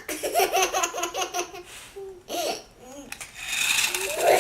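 A child laughing in a rapid run of high-pitched "ha-ha" pulses, about five a second, then a few more laughs later on.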